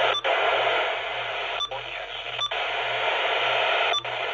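Weather radio receiver hissing with loud static between the words of its forecast broadcast, a sign of poor reception. The hiss cuts out for an instant four times, each time with a short click.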